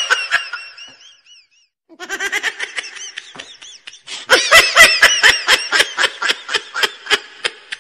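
Human laughter: a high, wavering laugh trails off in the first second, and after a short silence hearty laughing starts about two seconds in and turns loud about four seconds in, in quick repeated 'ha-ha' pulses.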